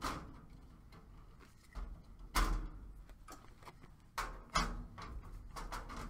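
Handling noise from a furnace pressure switch being disconnected: a series of sharp clicks and knocks as the wire connectors are pulled off and the switch is handled, the loudest knock about two and a half seconds in.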